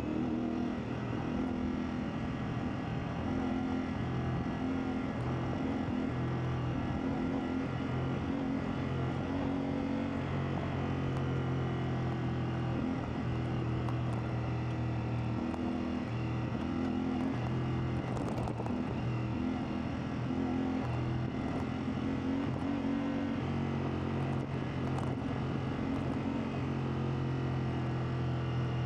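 CFMoto 450MT's parallel-twin engine running at fairly steady revs while riding off-road, the pitch shifting only slightly as the throttle changes.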